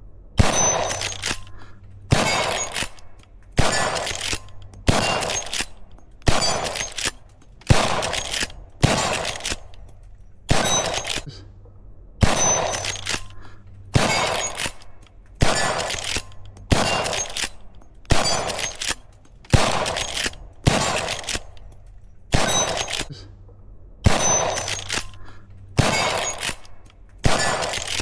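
Henry lever-action rifle chambered for .357 Magnum/.38 Special fired over and over at a steady pace of about one shot every second and a half, each shot followed by a ring that dies away before the next.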